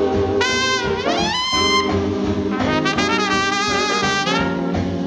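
Background jazz music led by brass horns, with a horn sliding upward in pitch about a second in.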